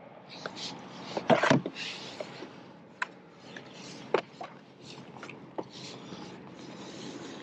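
Gear being handled on a plastic fishing kayak: a cluster of sharp knocks about a second and a half in, then a few single knocks and rubbing rustles as a plastic fish-measuring board is pulled out and laid across the hull.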